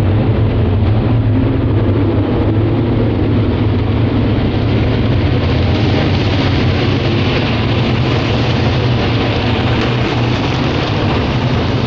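Engines of a pack of dirt-track race trucks running, a loud steady drone that gets harsher about halfway through.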